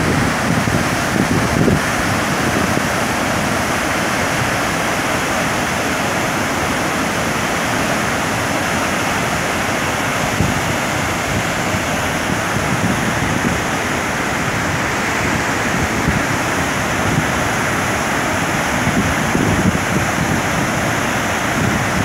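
Steady rush of the Lien Khuong waterfall, a wide multi-stream fall running high with muddy floodwater. Wind buffets the microphone at the start and again near the end.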